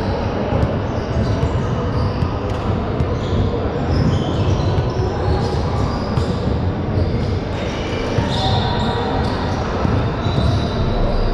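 Basketball game in a gym: the ball bouncing on the court over a steady din of play, with a few short, high squeaks, typical of sneakers on the floor, in the second half.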